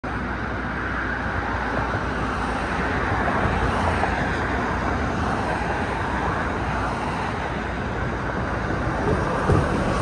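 Steady rush of road traffic noise from passing cars.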